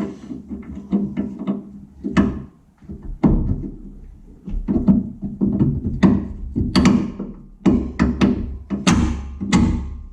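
Background music with a percussive beat: sharp drum-like hits over held low notes.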